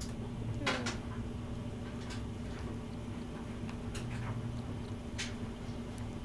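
A kitten suckling at a nursing bottle: scattered soft clicks and smacks over a steady low hum.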